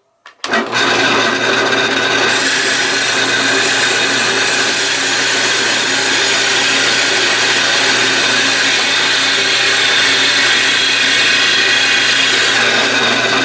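Drill spinning a hole saw through a wooden board, a steady scraping cut over the motor's hum, starting about half a second in. The saw's outer edge breaks out past the board's edge so the sawdust can escape, and it cuts quickly without building much heat.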